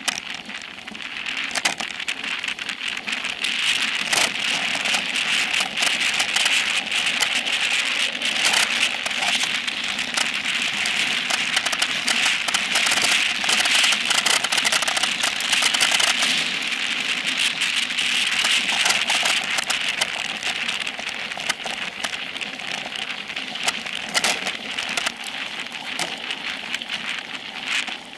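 Tyres of a Specialized Epic Pro mountain bike hissing and crackling as they roll fast over a dirt trail, with a dense run of small clicks and rattles from the bumps, picked up through the seat-post-mounted camera. It is loudest in the middle stretch, at the highest speed.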